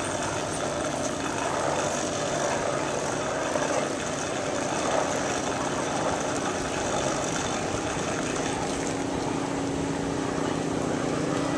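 Steady rolling noise of a recumbent bike riding along a paved path, heard from a bike-mounted camera. A low steady hum comes in about eight seconds in.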